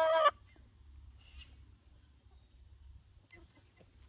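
A hen's long, drawn-out complaining call, begging for sunflower seeds, cuts off just after the start. After a few quiet seconds another long call begins near the end.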